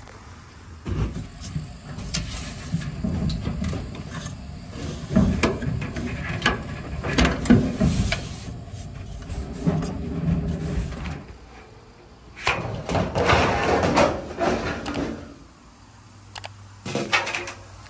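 Sheet-metal dryer parts being handled and shifted: the drum and cabinet panels scraping, rattling and knocking at irregular moments, with sharp metallic knocks around the middle.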